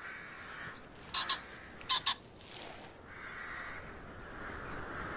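Rooks cawing: two short double calls about a second and two seconds in, over a steady background hiss.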